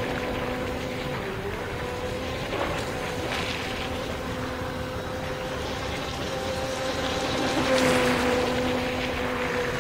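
Brushless electric motor of a radio-controlled Turbo Vee II deep-vee boat running at speed: a steady whine over water and wind hiss, louder as the boat passes close about eight seconds in.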